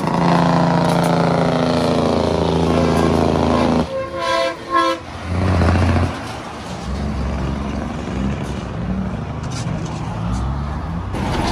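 Diesel dump truck engine pulling hard uphill, its pitch falling slowly as it lugs under load. About four seconds in, a horn sounds in a quick series of blasts for about a second. Then a deep, uneven engine rumble follows.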